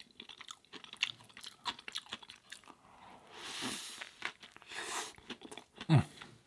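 Close-miked chewing of a Beyond Burger with onion and avocado: a run of short, wet mouth clicks, with two longer hissing sounds in the middle and a short falling hum about six seconds in.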